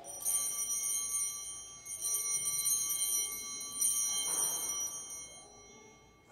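Altar bells rung three times at the elevation of the chalice during the consecration. Each ring starts bright and slowly fades, and the three rings come about two seconds apart.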